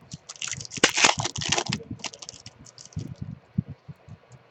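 Typing on a computer keyboard: a quick run of keystrokes, then a few scattered taps.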